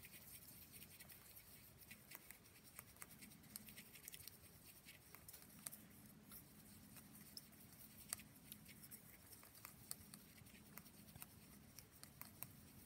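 Faint, irregular ticking and scraping of a fine paintbrush stirring a thin, watered paint mix in a small plastic pot.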